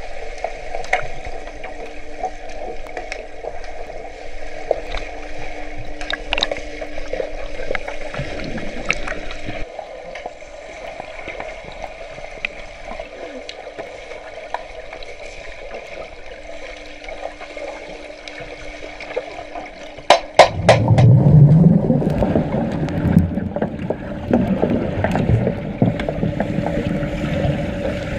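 Muffled underwater sound of a swimming pool with underwater hockey players moving through the water: a steady watery hiss under a faint steady hum, with scattered clicks. About twenty seconds in, after a few sharp clicks, it turns louder, with rumbling and gurgling close by.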